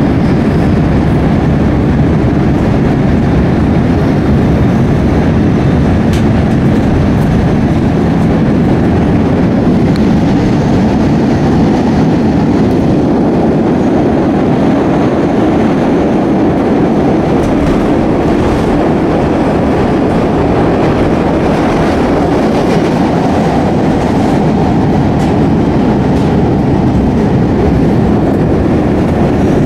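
CTA Blue Line 'L' train running at speed on the elevated structure, heard from inside the car: a steady, even noise of wheels on rail with no let-up.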